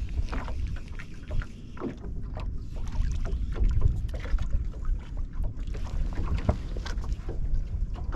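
Irregular small clicks and knocks aboard a fishing boat, over a steady low rumble.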